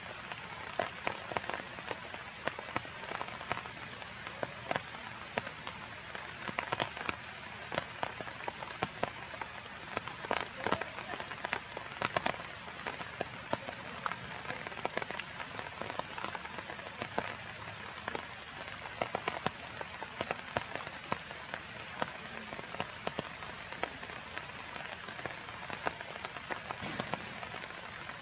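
Steady rain falling on leaves: an even hiss with many separate drops ticking close by all through.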